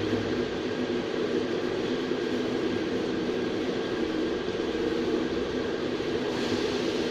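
Steady mechanical drone with an even hiss, without clicks or separate events.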